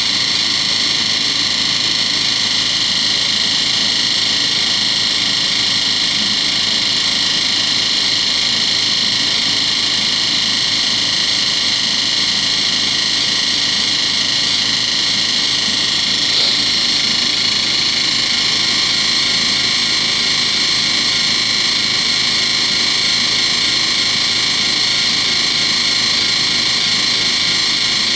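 Miele WMV960 front-loading washing machine spinning, giving a loud, steady noise with a high-pitched whine in it. The owner takes it for a spin vibration fault.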